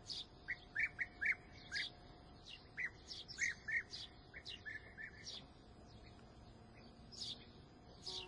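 European bee-eaters calling: a quick run of short, rolling calls through the first five seconds or so, with thinner, higher chirps scattered throughout, thinning out in the second half.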